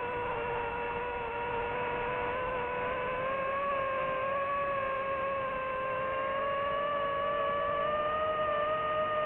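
DJI FPV drone's motors and propellers whining steadily over a rushing noise, the pitch rising slowly through the middle and dipping slightly near the end as the throttle changes.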